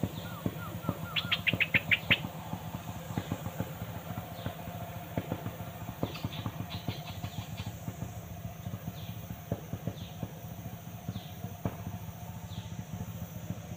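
Small birds chirping: a few low whistled notes, then a quick run of about seven high notes about a second and a half in, followed by single short falling notes every half second or so. A steady low motor hum runs underneath.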